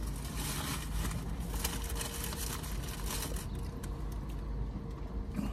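Steady low rumble of a car idling, heard from inside the cabin, with faint clicks and crinkles of eating and drinking through the first few seconds.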